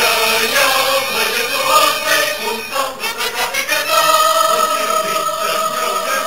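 Background music with choral singing, ending in a long held note from about four seconds in.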